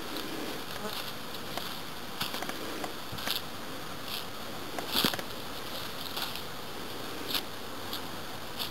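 Honeybees buzzing around the hives, with scattered short crackles on top; the loudest crackle comes about five seconds in.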